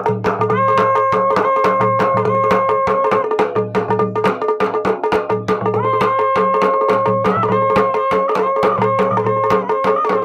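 Dhol and damau drums beaten in a fast, dense rhythm, with a ransingha horn sounding long held notes that bend at their ends. This is traditional Uttarakhandi jagar music.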